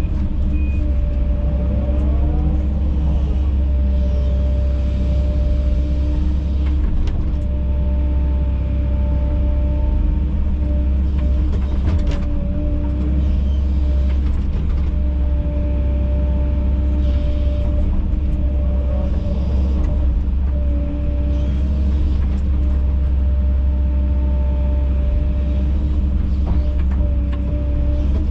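Heavy earthmoving machine's diesel engine running steadily under load, with a steady hydraulic whine that now and then rises and falls in pitch. A few sharp metal clanks come through, one about seven seconds in and another about twelve seconds in.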